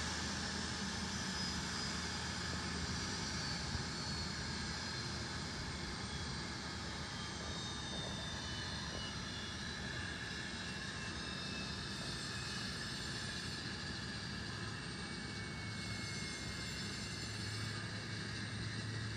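Embraer E-Jet regional jet's twin turbofan engines running, a steady rush with high whining tones that slowly fall in pitch as the engines wind down.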